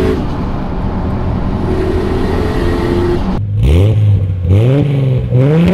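Nissan Skyline R34 GT-R's twin-turbo straight-six running steadily, then revved several times in quick blips from about three and a half seconds in, the pitch rising and falling with each rev.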